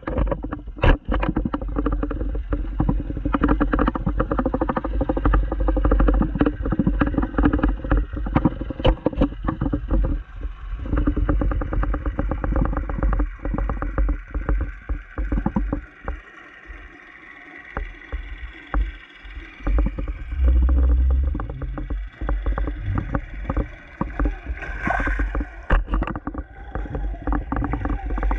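Underwater sound from a GoPro camera in its waterproof housing near a river bottom: a steady low rumble and hum, muffled, with many small clicks and knocks. It drops quieter for a few seconds past the middle, and a short gurgling hiss comes near the end.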